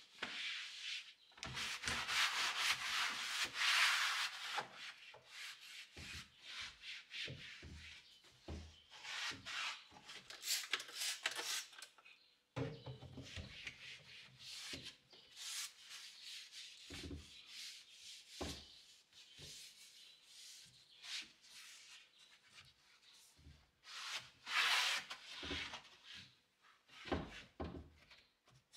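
Repeated rubbing and scraping with soft knocks in between, coming and going in spells.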